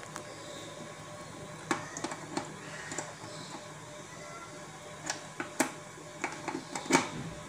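Faint background music over a steady low hum, with a series of small clicks and knocks from handling at a workbench, the sharpest one near the end.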